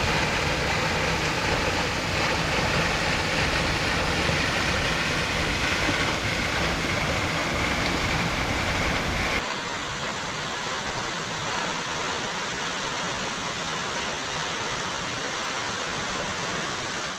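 Steady rush of a waterfall. About nine seconds in it cuts to a quieter, duller rush of water with less hiss and less low rumble.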